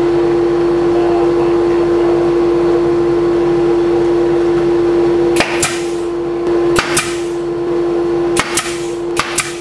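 Pneumatic nail gun firing five sharp shots into MDF bracing, starting about halfway through, two of them in quick succession near the end, over a steady hum.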